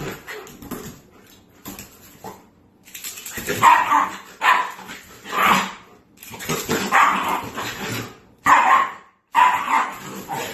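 A dog barking repeatedly, a string of separate barks about a second apart.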